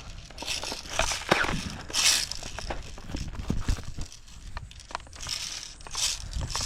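Irregular rustling and crunching with scattered light knocks: a player moving through the yard with clothing and gear brushing and footsteps crunching.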